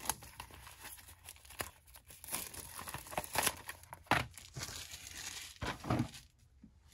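Packaging being torn and crinkled open by hand: irregular tearing and rustling strokes, dying down near the end.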